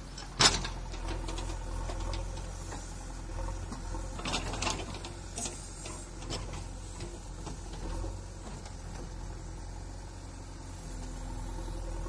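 JCB backhoe loader's diesel engine running steadily with a mechanical rattle. A sharp clank comes about half a second in, and a few lighter knocks follow around four to five seconds in.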